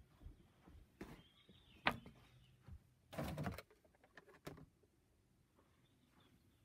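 Handling and rummaging noises: a few sharp knocks, the loudest about two seconds in, and a short rustle just after three seconds, as a handheld phone is moved about among things.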